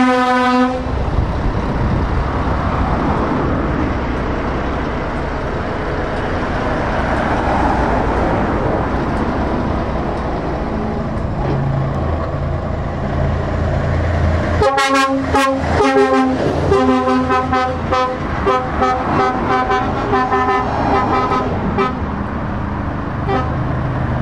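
Steady rumble of passing road traffic and truck diesel engines. A long truck air-horn blast cuts off just under a second in. About fifteen seconds in, a passing truck's air horn sounds again in a few long blasts, then a quick run of short toots, about three a second, for some five seconds.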